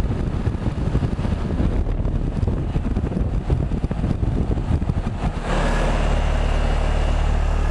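Old Comfort Maker central air conditioner running with a steady low hum. An uneven rumble lies over it for the first five seconds or so, then gives way to a smooth, constant hum.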